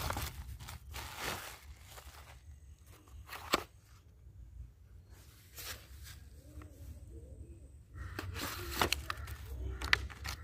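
Plastic packaging crinkling and rustling in hands as a folding saw is pulled from a plastic mailer bag and its clear plastic blister pack is handled. The rustling comes in bursts, with a sharp click about three seconds in and more crinkling with clicks near the end.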